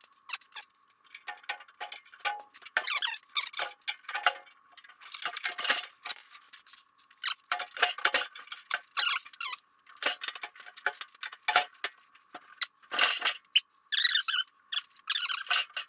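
Irregular clinks, scrapes and squeaks of metal parts being handled as a snowblower's auger assembly is worked into its housing and bolted up. The sounds are short and uneven, with no steady rhythm.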